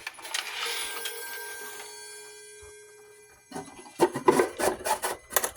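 Chime rods of a wall clock struck once, ringing together in several tones and fading away over about three seconds. Near the end comes a quick run of clicks and rattles as the metal movement is handled.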